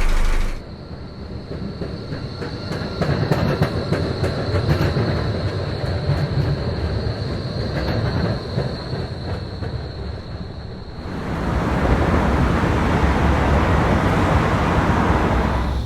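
A train running on rails: a low rumble with many irregular clicks of the wheels and a steady high whine. About eleven seconds in, the whine stops and the rumble grows louder and fuller.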